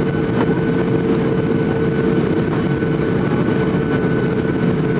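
Boeing 737 cabin noise heard from a window seat over the wing during descent. The turbofan engines and the air rushing past make a loud, steady drone, with a constant mid-pitched hum running through it.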